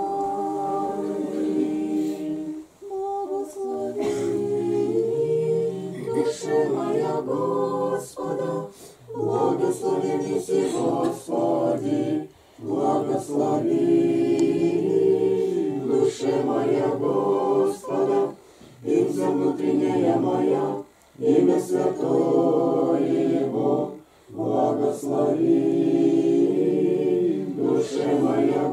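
A small group of women singing Orthodox church chant unaccompanied, in slow held phrases with short breaks for breath every few seconds.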